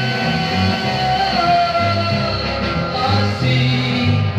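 A 1960s garage-rock single playing from a 7-inch vinyl record on a turntable: a band with a moving bass line and singing.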